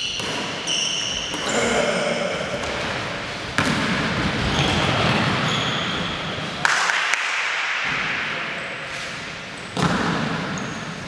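Basketball game in a large gymnasium: the ball bouncing on the hardwood court, sneakers squeaking and players calling out to each other.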